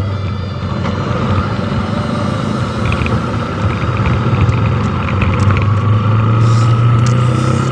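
Motorcycle engine running steadily while riding, a low drone under rushing wind noise.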